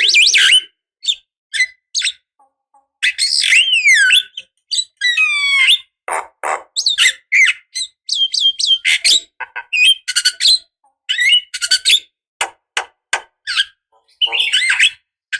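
Javan myna (jalak kebo) singing: a jumble of harsh squawks, clicks and chattering notes mixed with falling whistles. There is a short pause about a second in, then a dense run of calls to the end.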